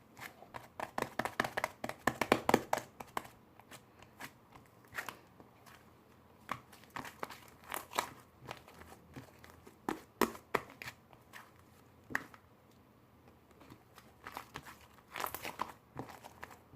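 Bursts of crinkling and crackling, as of something being crumpled or handled. The densest run comes in the first three seconds, with further bursts around the middle and again near the end.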